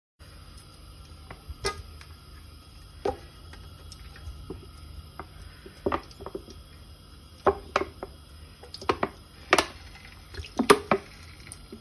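Irregular clinks and knocks of kitchen containers and utensils being handled, over a low steady hum; the clatter grows busier and louder in the second half.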